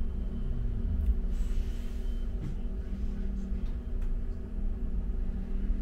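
Low rumble of a London bus heard from inside while it rides. A low drone drops in pitch during the first second.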